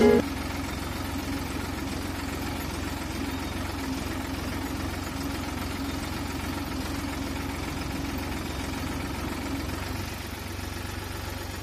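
Tractor diesel engine running steadily while pulling a seed drill across the field, sowing paddy directly into dry soil. The level dips slightly about ten seconds in.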